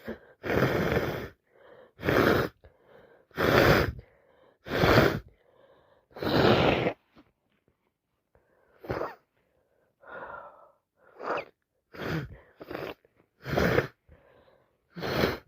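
A woman with a heavy head cold sneezing over and over: five loud wet sneezes in the first seven seconds, then a run of quieter sneezes and breaths.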